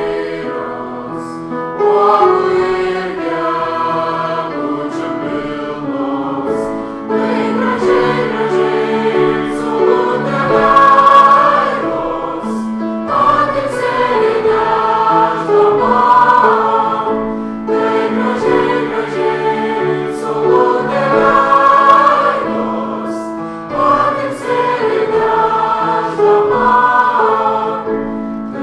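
Choral music: a choir singing together in long, sustained phrases.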